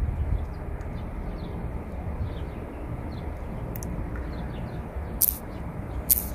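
Low steady rumble of an idling coach engine, with faint bird chirps over it. Two sharp clicks come near the end.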